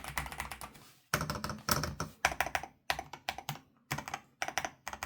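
Corsair Vanguard 96 keyboard being typed on: quick runs of key clicks in short bursts, with brief pauses between them.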